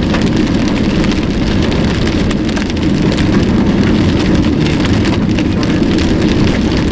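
Rain pattering on a moving car's roof and windshield, dense fine ticks over steady engine and tyre noise on a wet road.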